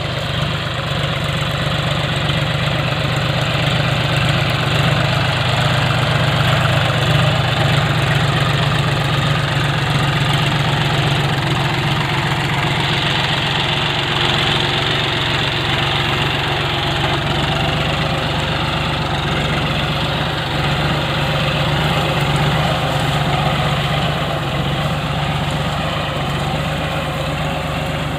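Engine of a ploughing machine running steadily throughout, with a strong low hum.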